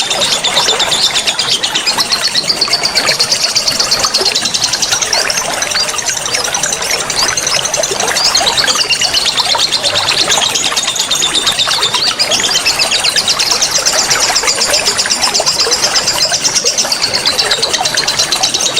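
A songbird singing a fast, continuous, rapid-fire song of high trilled notes, the loud 'nembak' style used as masteran to tutor caged songbirds, over the steady rush of a waterfall and running water.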